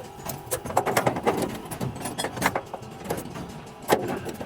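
Irregular metallic clanks and knocks from hand work on a truck's metal parts, several light taps and one sharper strike near the end.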